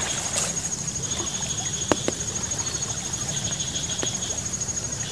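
Riverbank ambience: a steady, high-pitched insect trill over the constant rush of a flooded river, with a few faint clicks.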